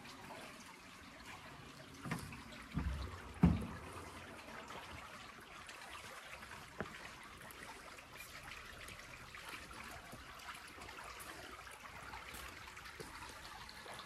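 Faint, steady trickle of water from a swimming pool. A few dull thumps come between about two and three and a half seconds in.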